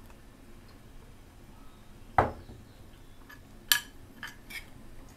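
Kitchen utensils clinking against dishes: one sharp ringing clink about two seconds in, a second bright clink about a second and a half later, then a few lighter taps.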